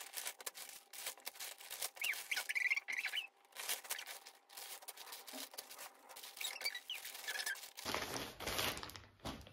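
Plastic mailer bags and thin plastic wrappers rustling and crinkling as clothes are unpacked by hand, in irregular bursts.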